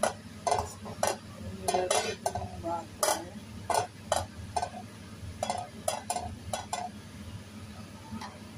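Plastic spatula scraping and knocking against a nonstick frying pan as it pushes melting butter around, a quick irregular run of strokes that stops about seven seconds in.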